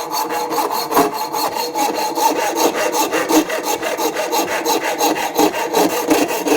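Hacksaw cutting through a metal screw clamped in a vise: fast, even back-and-forth rasping strokes with a faint ringing tone under them, the blade nearly through the screw.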